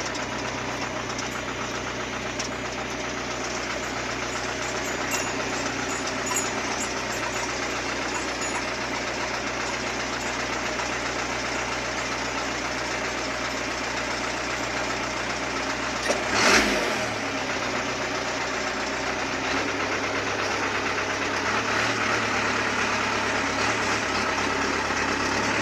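Diesel engine of a Hino FB truck running steadily while driving, heard from inside the cab, with a brief louder burst about two-thirds of the way through.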